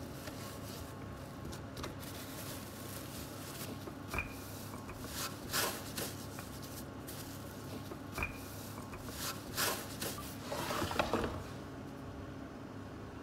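Soft rustles and a few light knocks of dough being pressed and rolled out with a wooden rolling pin on a plastic sheet, over a steady low hum.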